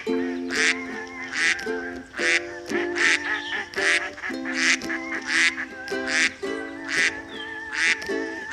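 Duck quacking repeatedly, short calls about twice a second, over background music with held notes.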